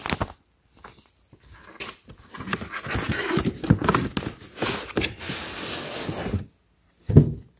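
Cardboard shipping box and paper insert rustling and scraping as they are handled and turned over on carpet. The rustling stops abruptly, followed by a single soft thump about seven seconds in.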